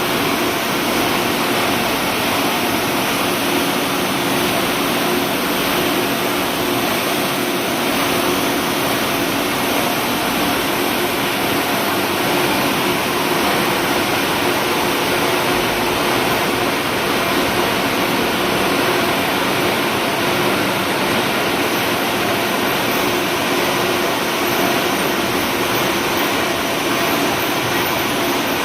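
Wire-production machinery running steadily: an even, unbroken noise with a faint steady hum underneath.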